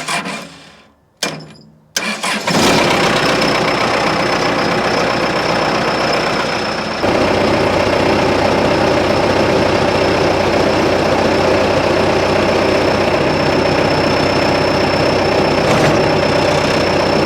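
Diesel tractor engine cranked in two short bursts, then catching about two seconds in and running steadily. About seven seconds in it runs heavier, with a steady high whine over it, as it drives the hydraulics.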